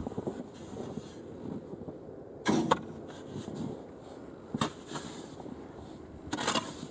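Snow shovel scraping and digging into packed snow: three short scrapes about two seconds apart, the first the loudest.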